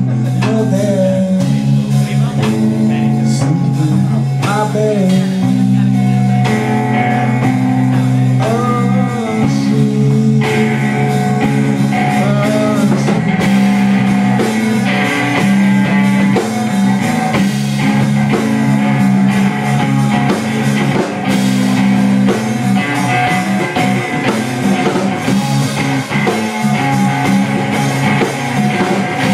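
Live rock band playing: electric guitar, electric bass and drum kit, with singing over it in places.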